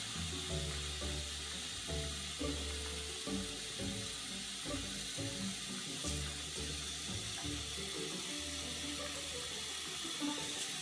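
Tap water running steadily into a porcelain bathroom sink, over background music with low notes that change about every half second.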